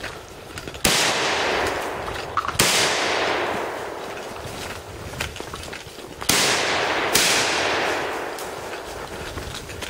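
Four shotgun shots, each trailing a long echo that dies away slowly. The first two are nearly two seconds apart, and the last two less than a second apart, with a few faint clicks in the gaps.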